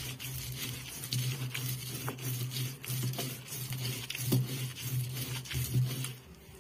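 Stone roller pushed back and forth on a flat ammikkallu grinding stone, about two strokes a second. Stone grates against stone with a wet squish as dried chillies, shallots and curry leaves are crushed into chutney.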